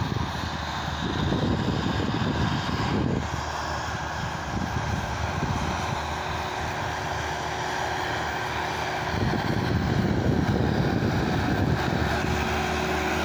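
A Case 100 HP farm tractor's diesel engine running steadily under load as it pulls a 22-disc harrow through the soil. It grows a little louder over the last few seconds as the tractor comes closer.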